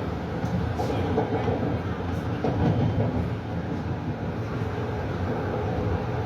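Metro-North M3A electric multiple-unit train running, a steady rumble with faint rail clicks, heard from inside the car.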